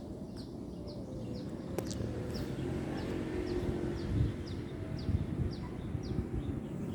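A bird chirping repeatedly, short high notes sliding downward about two a second, over a steady low rumble. There is a single sharp click about two seconds in.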